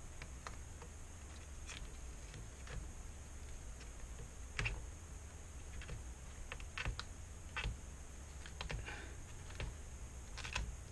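Scattered small clicks and taps of hands working on the parts of a disassembled LCD panel, irregular and of uneven strength, over a steady low hum.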